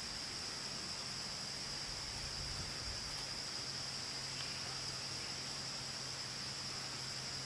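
Insect chorus: a steady, high-pitched trill over a constant background hiss, with a faint low hum underneath.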